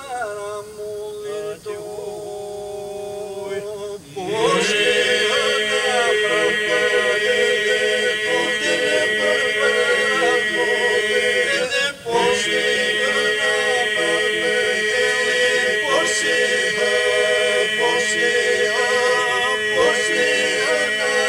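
Southern Albanian iso-polyphonic folk song sung a cappella by a men's group: for about the first four seconds a lead voice sings over a held note, then the whole group comes in loudly on a sustained drone beneath the lead. The singing breaks off briefly for a breath about twelve seconds in, then carries on.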